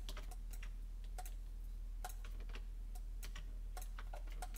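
Computer mouse clicking about ten times at uneven intervals, each a short sharp click, as mesh faces are selected one after another, over a steady low electrical hum.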